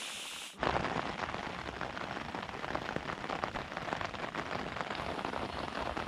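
Heavy rain falling on a nylon tent, heard from inside: a dense, steady spatter of drop hits on the fabric. It cuts in abruptly about half a second in, after a quieter hiss.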